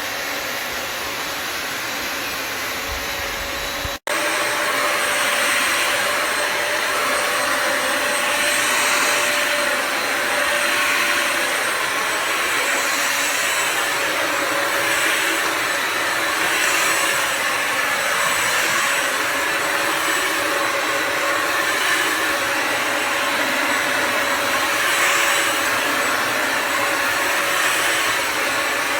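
Bissell Symphony Pet vacuum and steam mop running, a steady motor rush with a faint whine. It cuts out for an instant about four seconds in, then carries on louder, swelling and fading about every two seconds.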